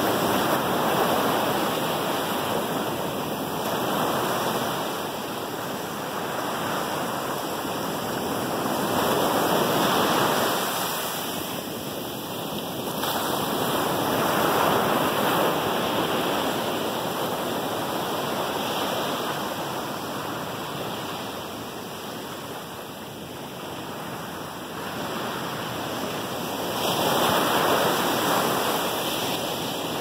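Ocean surf on a sandy beach: small waves breaking and their foam washing up the sand. The rushing hiss swells and fades every few seconds as each wave comes in.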